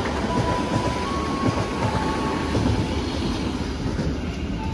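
Passenger train passing through a station at speed, its wheels rumbling and clattering on the rails. A faint high squeal steps up and down in pitch a few times.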